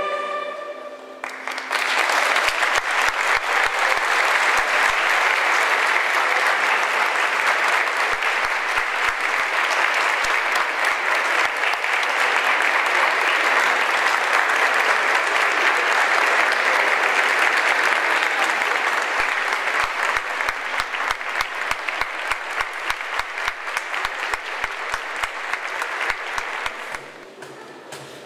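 A youth choir's final held chord dies away about a second in, and the audience breaks into loud, steady applause that tapers off near the end.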